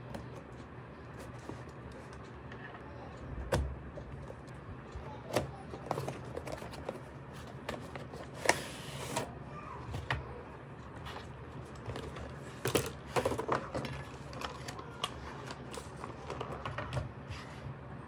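Cardboard toy-car box being opened and unpacked by hand: scattered taps, clicks and scrapes of cardboard and plastic packaging, with a few short rasping slides, the clearest about halfway through.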